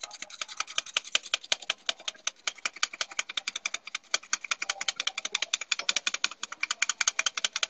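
Handheld stainless-steel flour sifter being worked, a fast, even run of metallic clicks, about nine a second, as cake flour is sifted.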